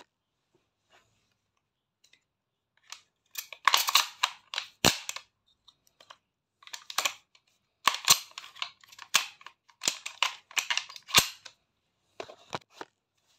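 Shotgun shells being pushed one after another into a shotgun's tube magazine: short clusters of sharp clicks and metallic snaps, several a couple of seconds apart.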